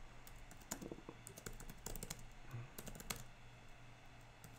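Faint typing on a computer keyboard: quick, irregular keystroke clicks, thinning out after about three seconds.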